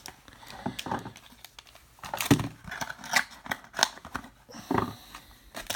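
A trading-card pack being opened and handled: irregular rustling, crinkling and scraping of wrapper, cardboard and cards, with a few sharper clicks in the middle.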